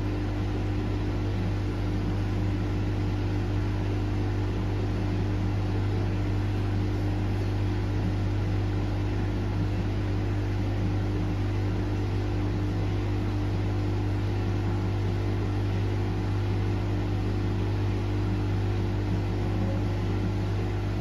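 Cottons 40 washing machine running, a steady motor hum that does not change.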